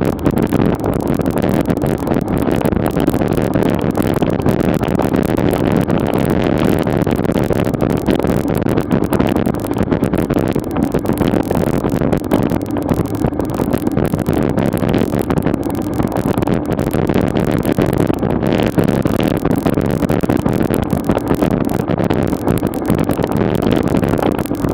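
Steady running noise of a slow-moving motor vehicle, its engine droning evenly at low road speed.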